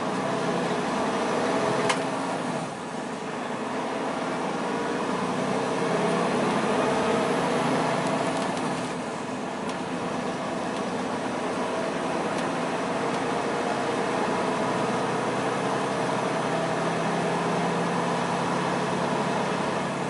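Semi-truck cruising down the highway, heard from inside the cab: a steady engine drone with road noise whose pitch drifts slowly. A single sharp click about two seconds in.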